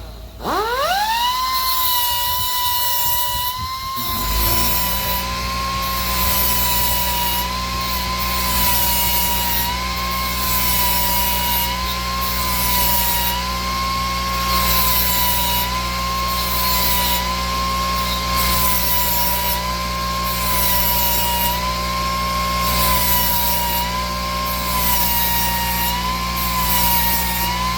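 Die grinder spinning up with a quickly rising whine, then running steadily as its grinding wheel is drawn across the teeth of a hedge trimmer blade to sharpen them. The whine sags in pitch about every two seconds as the wheel bites the steel, over a grinding hiss. A low steady hum joins about four seconds in.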